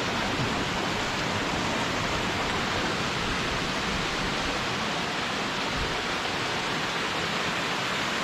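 Waterfall's falling water making a steady, unbroken rush.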